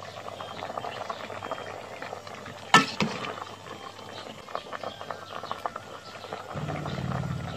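Curry simmering and bubbling in an aluminium pot, with a metal ladle stirring through it and one sharp clink against the pot about three seconds in. A low steady hum comes in near the end.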